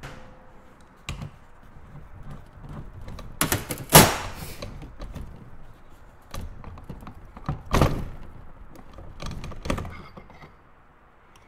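Scattered knocks and thunks of metal parts being handled, the loudest about four seconds in, as a case splitter is worked and the crankcase halves of a Honda CR85 two-stroke engine are pulled apart.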